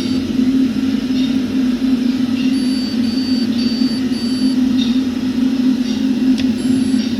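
Candy 7 kg washing machine running with a steady low hum. Four short high-pitched tones sound in a row about three to four seconds in.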